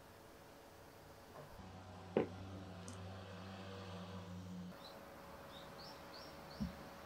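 A ceramic coffee mug knocks once, sharply, on a wooden desk about two seconds in, over a low steady hum. Later a small bird chirps four or five times in short rising notes, and a soft low thump comes near the end.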